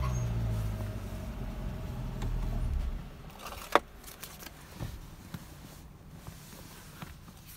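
Corvette C8's V8 idling just after a rev, then cutting out about three seconds in. A single sharp click follows a moment later, then a few faint clicks.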